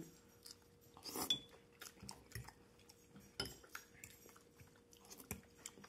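Metal fork clinking and scraping against a ceramic bowl: scattered light clicks, the clearest about a second in with a brief ring.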